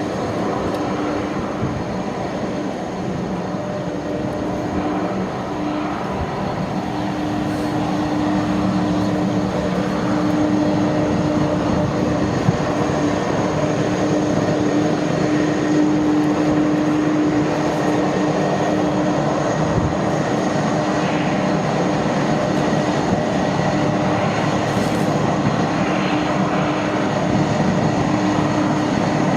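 Jet airliner engines running with a steady hum, growing a little louder about eight seconds in.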